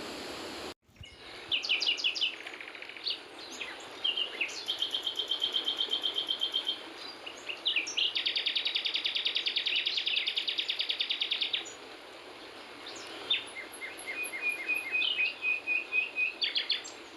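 Songbirds singing: assorted chirps and whistles, with two long, rapid trills of even repeated notes. A steady rush of water cuts off abruptly under a second in.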